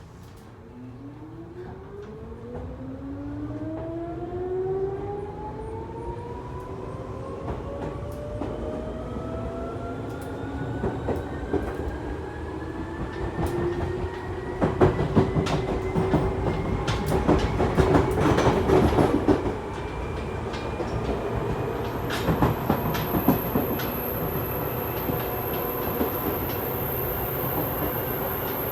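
Seibu 2000 series electric train heard from inside a motor car as it pulls away and accelerates. The traction motor and gear whine rises steadily in pitch over the running rumble. The wheels clatter over rail joints, most densely about halfway through, and a thin high whine sets in near the end.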